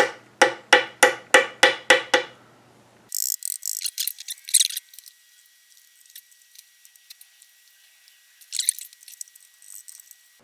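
A hammer tapping a metal punch about eight times in quick, even succession, roughly three to four blows a second, each with a short metallic ring, driving a part out of the milling machine's body. After that come thin metallic clinks and rattles of loose parts, in two short clusters, over a faint steady high tone.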